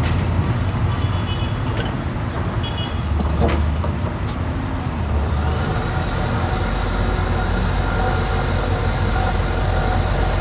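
Heavy diesel engine of an excavator running, with a sharp clank about three and a half seconds in and two brief high squeaks before it. From about six and a half seconds in the engine settles into a steadier, even note.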